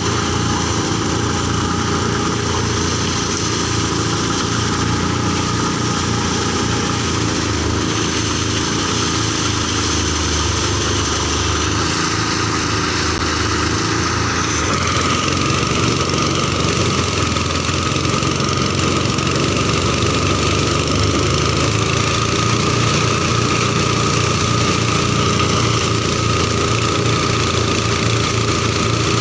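New small diesel engine running steadily on a rice threshing machine. About halfway through the sound shifts a little and a steady whine comes in.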